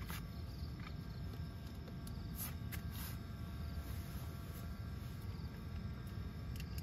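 Crickets and other night insects chirping steadily over a low, even rumble, with a few soft clicks.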